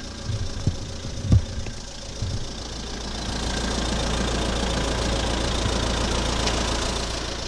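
Car engine idling close by with a steady low rumble, a few dull knocks in the first couple of seconds. A broad rushing noise swells from about three seconds in and eases off near the end.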